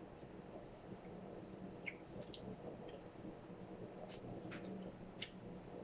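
Faint close-up chewing of snack food, soft wet mouth sounds with a few small scattered crunches and clicks.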